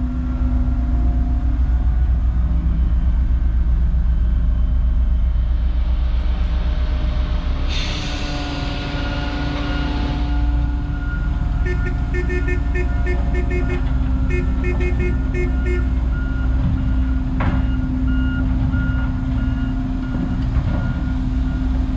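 Heavy diesel earthmoving machinery running steadily. A hiss of air comes about eight seconds in, then a reversing alarm beeps in quick runs for about four seconds.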